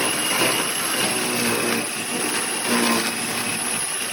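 AIVOLT 2500 W electric garden shredder running, with a steady high whine over a lower hum that dips and shifts now and then as it works.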